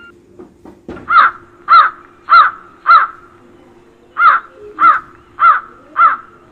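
Crow cawing: eight loud caws in two runs of four, about two caws a second, with a short pause between the runs.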